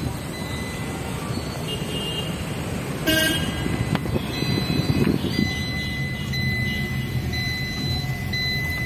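Car engine and road rumble heard from inside a slowly moving car, with a short car-horn toot about three seconds in. From about five seconds in, a high beeping in long pulses with short gaps runs alongside.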